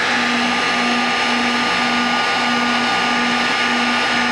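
Electric heat gun running steadily, its fan blowing hot air with a constant hum and whir to shrink heat-shrink tubing over soldered wire splices.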